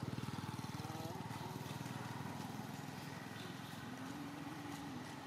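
A small engine running with a rapid even beat, loudest at the start and slowly fading.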